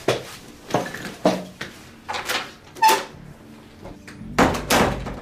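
A room door being handled: a string of short, irregular knocks and scrapes, with the loudest thump near the end as it shuts.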